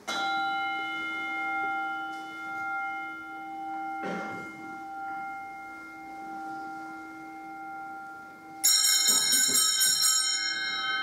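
Altar bells rung at the elevation of the host during the consecration. A single bell is struck at the start and rings on with a long, slow decay. About eight and a half seconds in, a cluster of small altar bells is shaken in a rapid jangle that fades before the end.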